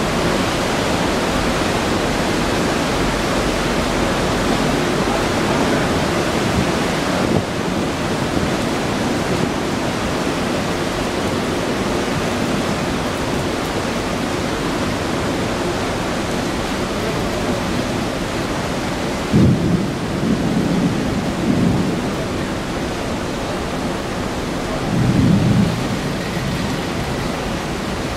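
Steady rain and wind noise during a thunderstorm, with two short, low rumbles of thunder about two-thirds of the way through and again near the end.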